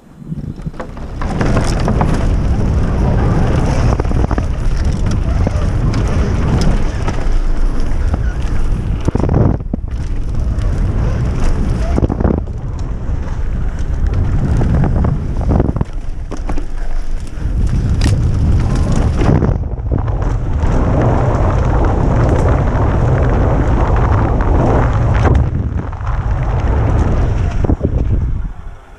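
Wind blasting over a helmet-mounted camera's microphone during a fast downhill mountain-bike descent, mixed with the tyres rolling over dirt and the bike rattling over bumps. The rush eases briefly a few times and stops sharply near the end.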